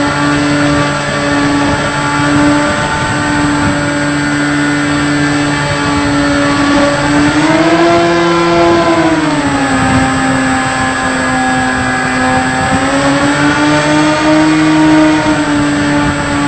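Electric motor and propeller of a Bix3 RC trainer plane heard from its onboard camera, a steady hum at low throttle. The pitch rises about eight seconds in, drops a second or so later, and climbs again near the end.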